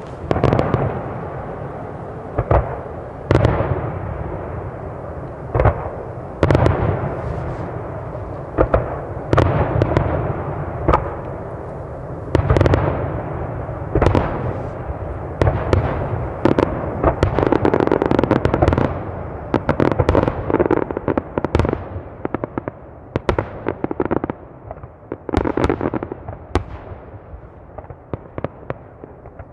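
Aerial firework shells bursting one after another, each a sharp boom with a long rolling echo. Toward the end the booms give way to quieter, rapid crackling pops.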